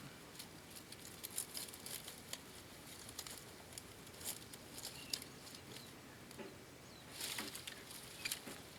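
Small dry twigs giving scattered light crackles and ticks, with a denser cluster about seven seconds in.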